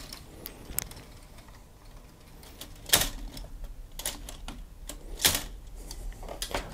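Plastic clicks and knocks of LEGO Technic parts as the truck's tilting cab is lowered by hand: a scattering of light clicks, with the two sharpest about three seconds in and just after five seconds.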